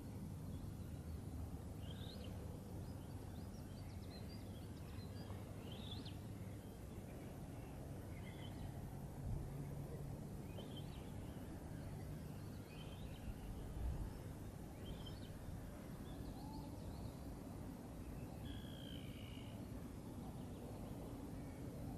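Faint dawn birdsong, short high chirps scattered throughout, over a steady low outdoor rumble. Two brief low thumps come at about 9 and 14 seconds.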